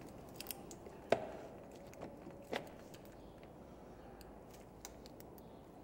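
Faint handling clicks and knocks as hands work a rubber CV-joint boot along a plastic boot-installer cone on a car's drive shaft. The loudest is one sharp knock about a second in, with a smaller one about two and a half seconds in.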